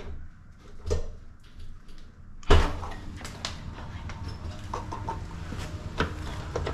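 A few scattered knocks and clatters, then one loud sudden bang about two and a half seconds in, after which a steady low rumble stays up.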